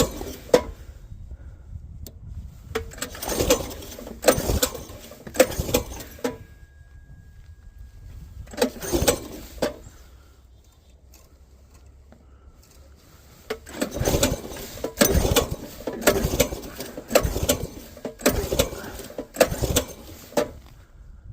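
Coleman B200R minibike's small single-cylinder engine running while warming up, with a low steady hum under irregular bursts of louder noise. The bursts come in clusters, with a quieter stretch in the middle and a dense run in the last third.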